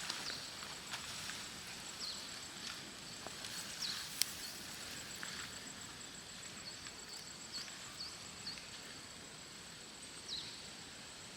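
Quiet forest ambience: a steady hiss with a thin, high, steady whine over it, a scatter of short high chirps and a few light clicks.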